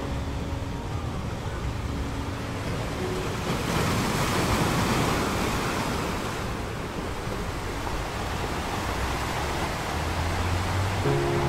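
Sea surf washing onto a beach, a steady wash that swells louder as a wave surges in about four seconds in, then settles again.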